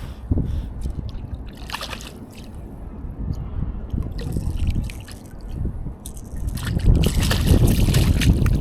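Lake water sloshing and splashing, with wind rumbling on the microphone; it grows louder about seven seconds in.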